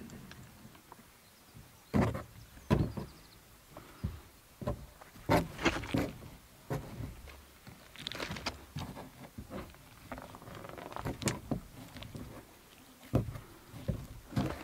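Irregular thumps and knocks of hands pressing and shaping dough on the hull of an upturned canoe, with a few sharper taps among them.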